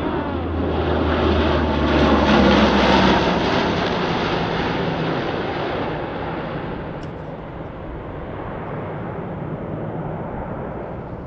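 C-130 Hercules four-engine turboprop flying a low pass: a steady propeller drone under a broad rushing roar that swells to its loudest about two to three seconds in, then fades gradually.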